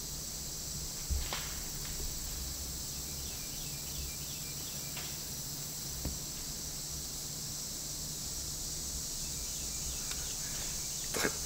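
Steady, high-pitched chorus of insects in the woods, with a short run of faint repeated chirps about four seconds in and a few faint clicks near the end.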